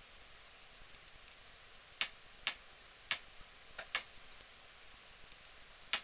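A handful of sharp, light clicks, irregularly spaced about half a second apart, starting about two seconds in, with one more near the end, over a faint steady hiss.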